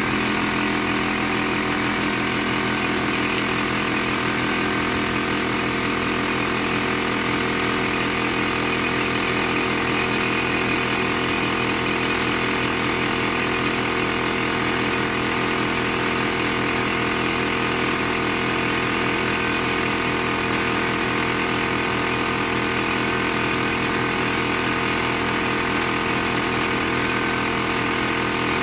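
Air compressor running steadily, inflating a freshly mounted motorcycle tyre to seat its bead.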